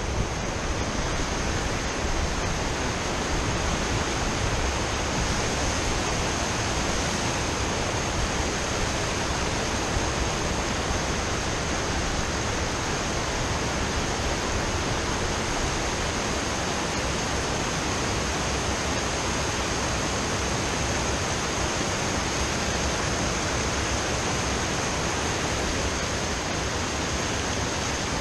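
River water rushing steadily over a concrete low-water crossing and rocks, a continuous even roar of small cascades.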